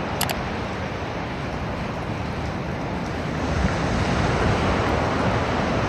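Ocean surf washing on a wide, shallow beach: a steady rushing noise that swells a little in the second half, with wind on the microphone.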